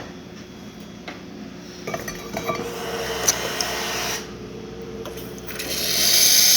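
Rocket Appartamento espresso machine's hot-water wand dispensing: a few clinks and water running into a cup, then a loud, steady hiss of hot water and steam building up near the end.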